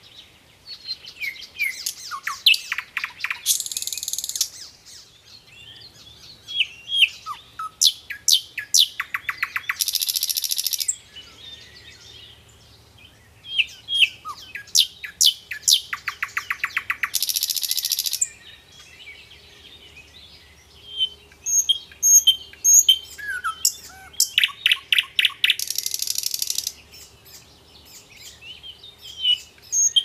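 Common nightingale singing: four phrases with short pauses between, each a mix of varied whistles and chirps that builds into a fast, loud, rattling trill of repeated notes.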